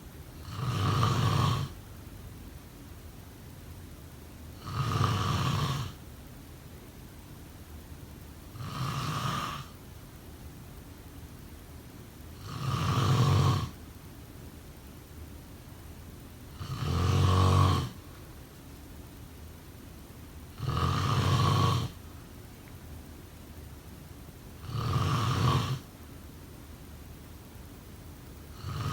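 A person snoring at an even pace: about seven snores, one roughly every four seconds, each lasting a second or so.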